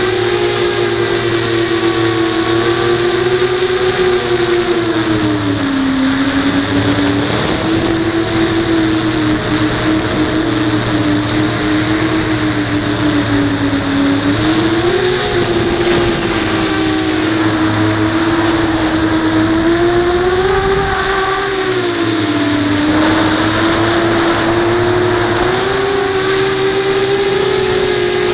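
Brushless motors and 5-inch propellers of an FPV quadcopter whining, heard from the camera on board; the pitch rises and falls smoothly as the pilot works the throttle, over a steady hum and rushing air.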